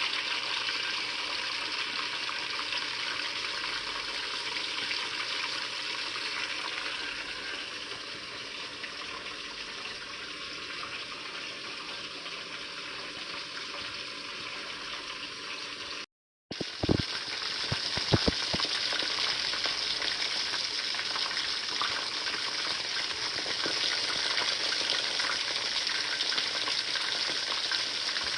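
Fish frying in hot oil: a steady sizzle. It breaks off briefly about halfway, then a few sharp knocks or clicks follow before the sizzle carries on.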